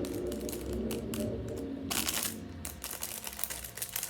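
Sports car engine running, a low rumble that fades out near the end, with plastic bag crinkling and small clicks close by.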